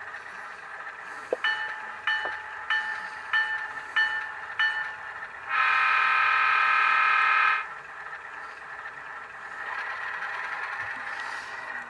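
Model diesel locomotive's Tsunami sound decoder playing through the model's small speaker: a steady diesel idle, six evenly spaced bell rings starting about a second in, then one horn blast of about two seconds midway.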